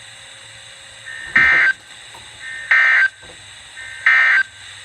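Emergency Alert System end-of-message data bursts: three short, identical screeching squawks, each under half a second long and about a second and a half apart, signalling the end of a severe thunderstorm warning broadcast.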